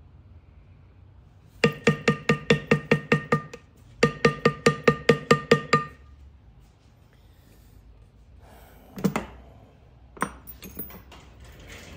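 Leather-tooling stamp struck rapidly with a mallet: two quick runs of blows, about five a second, each blow with a short ringing note. Then a single thud and a few light knocks and clinks.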